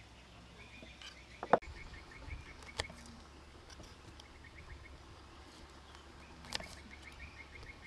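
A kitchen knife cutting small limes on a wooden chopping block, giving a few sharp knocks of the blade on the wood, the loudest about a second and a half in. Behind it a faint, rapid pulsing chirp comes and goes.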